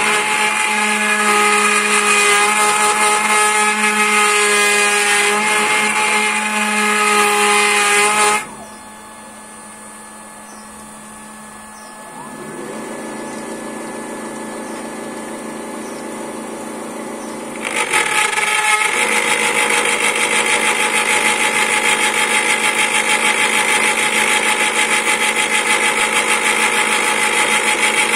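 Homemade CNC lathe's spindle milling a wooden sphere with a 6 mm end mill: steady cutting noise that drops away abruptly about eight seconds in, leaving a quieter machine hum, then comes back loud and steady about ten seconds later as the cutter bites into the wood again.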